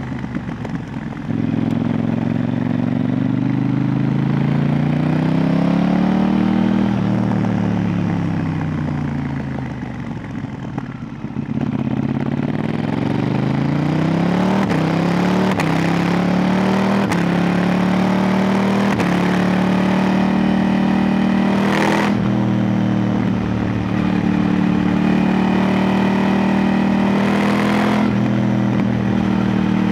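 KTM 890 Duke R's 889 cc parallel-twin engine through an Arrow Pro Race silencer with its dB-killer baffle fitted, ridden on the road. The engine note climbs for several seconds, drops away as the bike slows, climbs again with a few quick dips at gear changes, then holds steady at a constant pitch.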